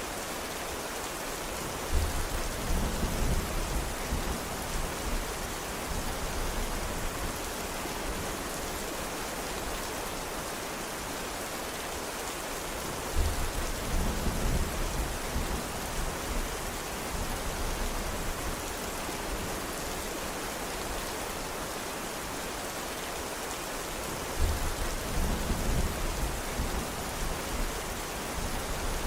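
Steady rain falling, with three low rumbles of thunder, each starting suddenly and fading over a few seconds: near the start, about halfway, and near the end.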